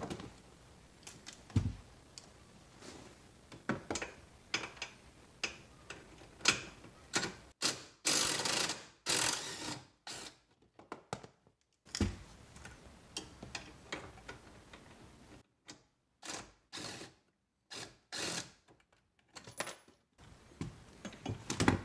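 Hand ratchet clicking in irregular short runs, with a few longer rasping stretches, as a T45 Torx bolt holding up a steering column is being undone.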